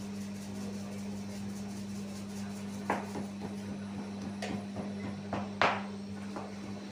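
A few sharp knocks and slaps of bakers working flatbread dough with a plastic scraper on a floured table, the loudest about two thirds of the way in, over a steady low hum.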